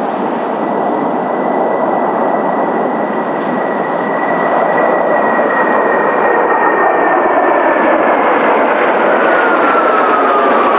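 Kawasaki T-4 jet trainers flying a low pass in formation: a turbofan roar that grows louder throughout, with a high engine whine that slowly drops in pitch and then glides down more steeply near the end as the jets go by.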